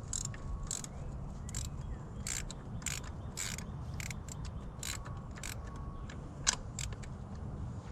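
Hand ratchet with a spark-plug socket clicking irregularly, a few clicks a second, as it is worked back and forth to unscrew a spark plug from the Honda Civic's cylinder head.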